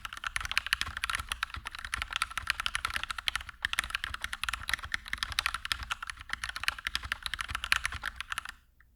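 Kemove Shadow mechanical keyboard with HK Gaming Pro Sky Blue linear switches and PBT double-shot keycaps being typed on quickly, a dense stream of keystrokes that stops shortly before the end.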